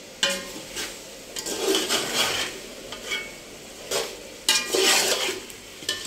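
A metal spoon scraping and stirring chicken masala around a large aluminium cooking pot. There are about seven irregular scraping strokes, some with a brief metallic ring, over a low sizzle of the masala frying.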